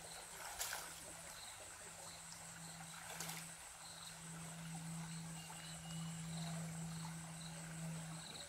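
Faint creek ambience: a shallow stream trickling, with insects buzzing and chirping and a steady low hum underneath. Two small splashes from a child wading in the water, about half a second in and about three seconds in.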